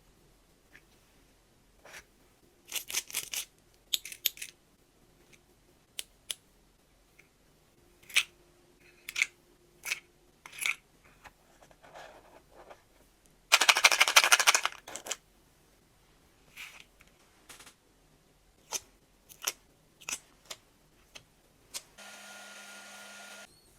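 Hands working nano tape: scattered clicks, taps and sticky crackles, with one loud, dense crackling rasp of about a second and a half midway. Near the end a steady hum with a high tone lasts about a second and a half, then stops.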